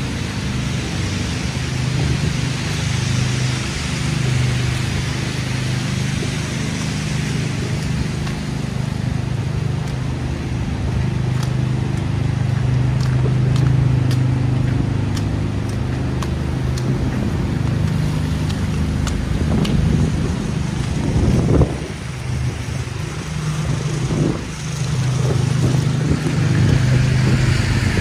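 City street traffic, with a vehicle engine running at a steady low hum under a wash of road noise.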